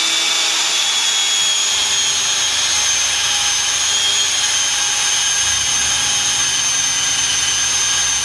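Power drill with a 5/32-inch bit running steadily at high speed with a constant whine, boring a pilot hole at the marked spot for a wall-bracket screw.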